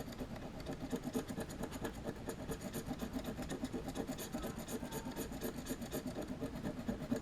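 A scratch-off lottery card being scratched: rapid, even back-and-forth rubbing strokes that wear off the coating to uncover the prize.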